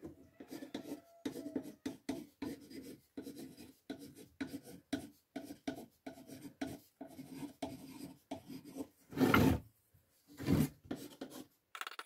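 Carpenter's pencil scratching out lettering on a painted wooden board in quick short strokes. Two louder scrapes come about nine and ten and a half seconds in.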